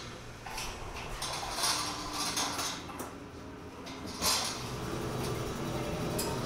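Metal sheet pans and oven rack clattering as trays of dough are loaded into an LBC rack oven, with a heavy metal clunk about four seconds in. After it, a steady machine noise continues.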